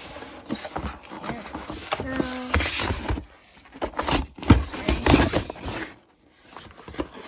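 Cardboard being handled: a toy's retail box scraping and knocking against the flaps of a corrugated shipping box as it is pulled out, in a string of irregular scrapes and knocks.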